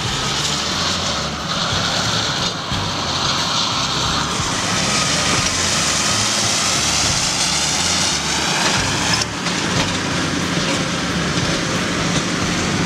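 Heavy machinery running: an impact-compaction rig's engine and towed steel drum working over the ground, a loud, steady, noisy mechanical rumble. The sound changes abruptly about nine seconds in.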